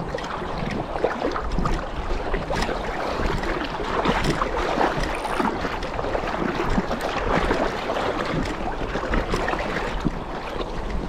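River water rushing and churning steadily over stones, with some wind on the microphone.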